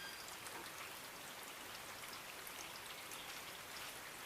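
Steady rain falling, with many individual drops pattering on nearby surfaces.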